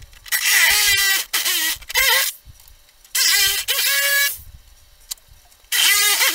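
Reciprocating saw cutting through the plastic body shell of a ride-on toy car in short bursts with quiet gaps between them, its motor whine sliding up and down in pitch as the trigger and load change.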